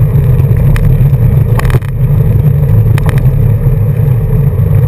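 Rally car engine running hard at a steady pitch, heard from inside the car on a gravel road. A few sharp ticks come through, the loudest cluster about one and a half seconds in, followed by a brief dip in level, and another tick about three seconds in.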